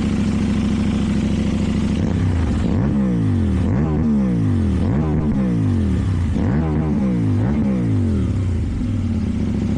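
KTM 790 Duke's parallel-twin engine, with an Akrapovic exhaust, running steadily at first. From about two seconds in, the revs rise and fall about five times, roughly once a second, before it settles back.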